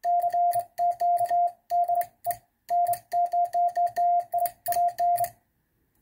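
Morse code sent by hand on a semi-automatic bug key: the radio's sidetone, a steady beep, is keyed on and off in quick strings of dots and longer dashes. The key's contacts click with every element, and the sending stops about five seconds in.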